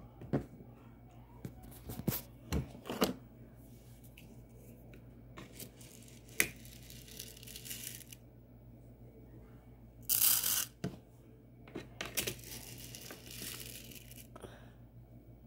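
Handling of small pots and a food packet: scattered small clicks and knocks, with two longer rustling, tearing bursts about ten and twelve seconds in.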